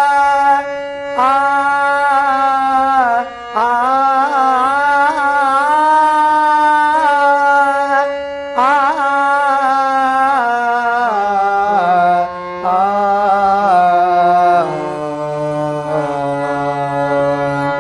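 A male voice sings long, drawn-out, ornamented phrases of a Marathi devotional abhang over a harmonium's held notes. In the last few seconds the voice drops out and the harmonium steps down the scale alone.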